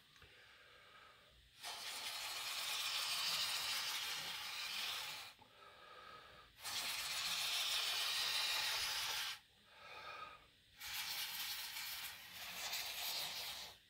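Steady hissing in three bouts of about three to four seconds each, with short pauses between.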